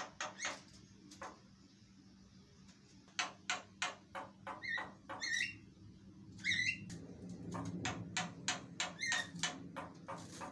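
Javan myna (jalak kebo) calling: a series of sharp clicking notes and short harsh calls, a pause of about two seconds, then squeaky whistled notes mixed in, building into a fast chatter in the second half.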